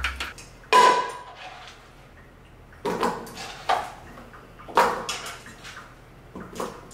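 Kitchen clatter of a metal cooking pot on a stone countertop as cut potatoes are put into it: about five separate knocks, the first about a second in with a short metallic ring.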